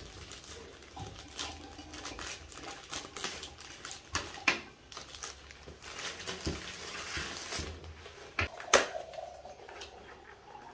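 Scissors snipping open a plastic mailer bag, then the plastic rustling and crinkling as a cardboard keyboard box is pulled out, with sharp knocks of the box and scissors on a wooden tabletop, loudest about four and a half and nine seconds in.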